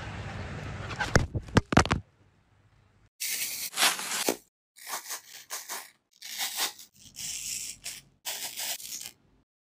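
A knife cutting through a crisp apple on a wooden cutting board, in about six separate crunchy strokes. This is preceded by a steady hiss with a few sharp loud clicks in the first two seconds.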